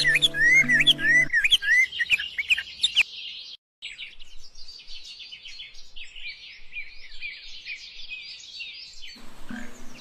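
Small birds chirping and twittering, at first over background music with held low notes that stops about a second in. After a brief cut, a dense chorus of high twittering carries on until the music comes back near the end.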